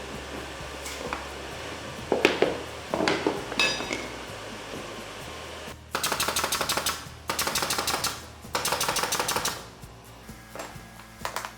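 A few knocks on the plywood subfloor, then a pneumatic nail gun firing in three rapid bursts of about a second each, driving nails into plywood floor sheets.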